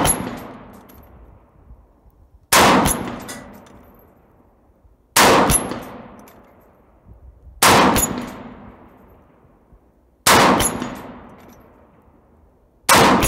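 Five slow, evenly spaced shots from a 10.5-inch-barrel AR-47 rifle in 7.62x39, about two and a half seconds apart. Each shot trails off in a long echo.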